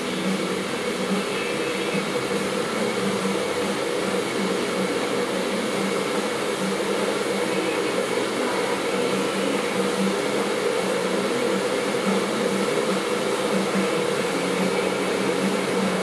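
Steady whirring hum of an electric motor-driven appliance running without change.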